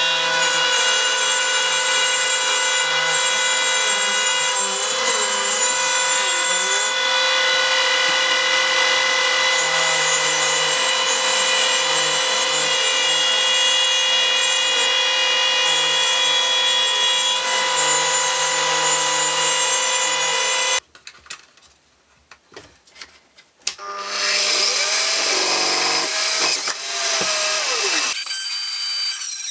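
Dremel rotary tool with a small abrasive cut-off wheel, running at a steady high whine while it grinds through a strip of brass. About two-thirds of the way through it stops abruptly, and after a short pause a bench drill press starts up and runs, drilling.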